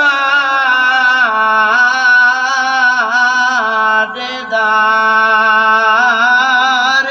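A man chanting a drawn-out lament in a Muharram majlis recitation, holding a long note with a wavering vibrato while his pitch sinks slowly; the line breaks briefly about four seconds in and then carries on.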